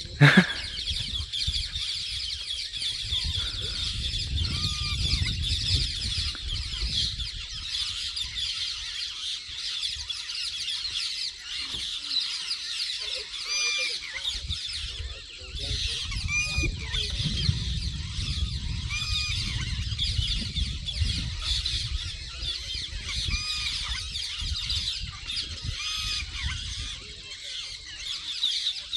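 A bird giving a short, honking, arched call every few seconds, over a steady high-pitched background chorus and a low rumble.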